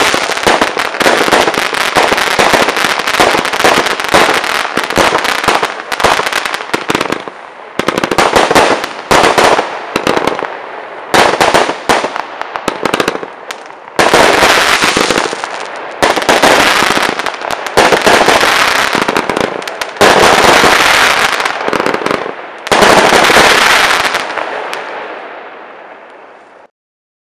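Weco Wolfpack consumer firework going off. First comes a dense run of rapid crackling and bangs, then a series of separate loud bursts about every two seconds, each trailing off in crackle. The display fades out near the end.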